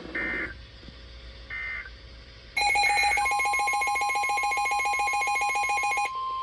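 Emergency Alert System signalling from a NOAA Weather Radio broadcast: two short digital data-burst screeches, then a loud, rapidly pulsing electronic alert beeping about two and a half seconds in, joined a little later by the steady 1050 Hz weather radio warning alarm tone, which carries on after the beeping stops. The tones mark the end of one alert message and the start of the next.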